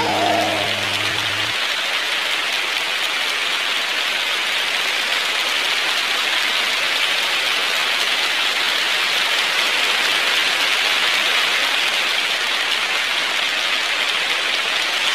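Audience applauding: a steady, dense clapping that holds at one level throughout. A child's last sung note fades out at the very start.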